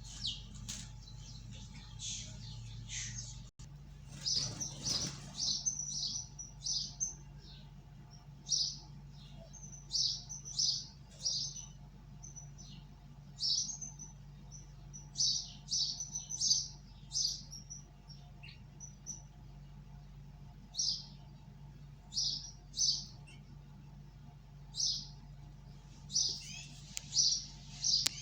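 Small cage birds chirping: short, high chirps in scattered clusters, some quick runs of several notes, over a faint steady low hum.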